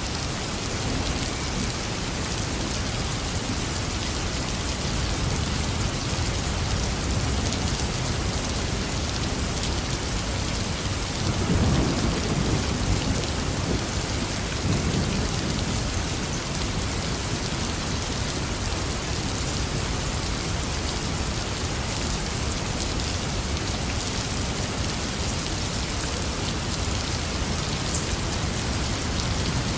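Heavy rain falling steadily, with a rumble of thunder about halfway through that swells and fades over a few seconds.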